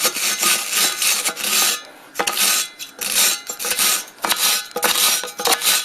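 A hand tool scraping back and forth over welded steel in repeated strokes, roughly one and a half a second, cleaning slag off a fresh weld in place of a chipping hammer.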